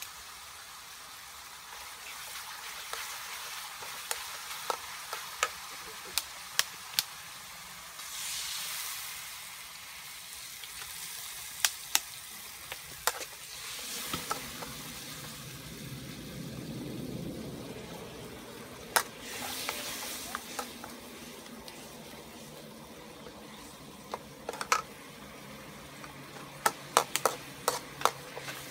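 A metal ladle stirring and knocking in a steel wok while food fries and sizzles in it, with many sharp clicks of utensils. Near the end come quick knocks of a knife on a wooden chopping board.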